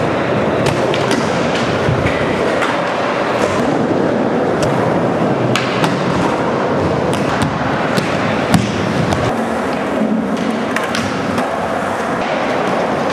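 Skateboard wheels rolling on a smooth concrete floor, with the clacks and knocks of the board against the ground and obstacles. One sharp impact stands out about eight and a half seconds in.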